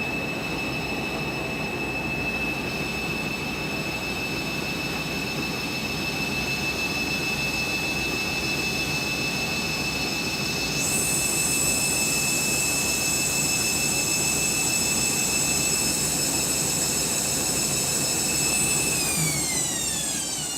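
Candy Grand'O Vita 7kg washing machine spinning: a steady high motor whine over the rush of the turning drum. About halfway through, higher tones join in. Near the end the whine falls in pitch as the drum slows down.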